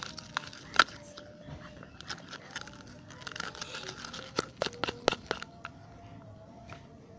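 Clear glue slime being stirred slowly with a pen in a plastic container as it starts to set, with a gom activator just added. It gives sticky crackling and scattered sharp clicks, the loudest about a second in and around five seconds in.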